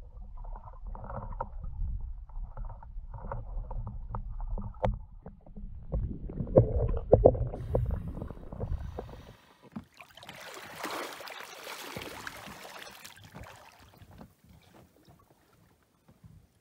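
Muffled underwater rumble and bubbling picked up by a diver's camera, with a few sharp knocks. After a sudden break about nine seconds in, water splashing and sloshing that fades away.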